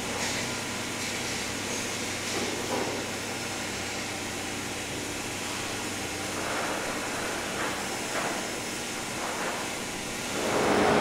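Steady hiss and hum of running food-processing machinery, with a few faint knocks; it grows louder near the end.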